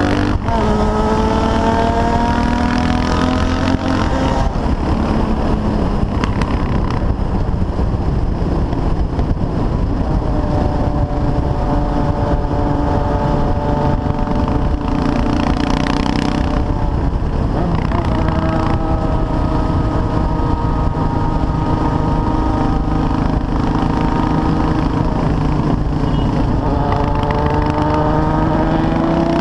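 CCM R30 supermoto's 644 cc single-cylinder engine under way. Its pitch climbs and drops back at gear changes a few times, holds steady at cruising speed for a long stretch, then climbs again near the end, over a steady rush of wind and road noise.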